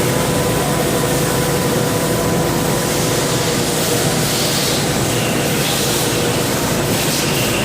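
Haas VF-2SS CNC vertical machining center with its high-speed spindle running: a steady mechanical hiss with a faint constant whine.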